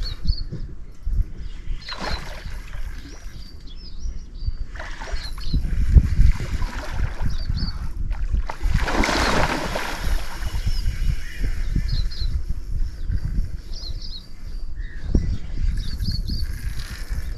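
Short high bird chirps repeat every second or two over a steady low rumble, with a brief surge of rushing noise about nine seconds in.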